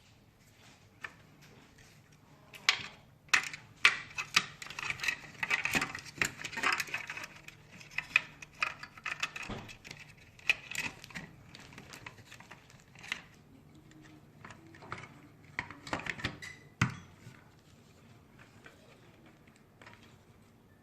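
Small hard parts of a handheld vacuum cleaner clicking and clattering as they are handled and fitted back into the plastic housing, in a busy run of knocks that thins out near the end.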